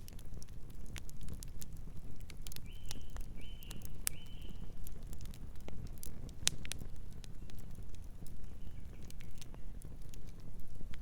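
Campfire crackling, with scattered sharp pops over a low steady rumble of the flames. Three short high chirps come in quick succession a little after two seconds in, with a fainter one later.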